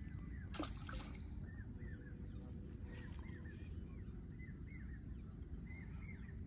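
Small birds chirping over and over above a steady low wind rumble on the microphone, with one brief sharp swishing sound about half a second in.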